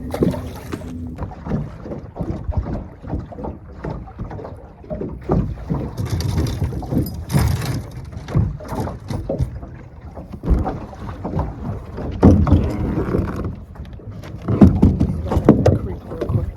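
Wind buffeting the microphone on a small fishing boat, with irregular low knocks and thumps, the loudest about twelve and fifteen seconds in.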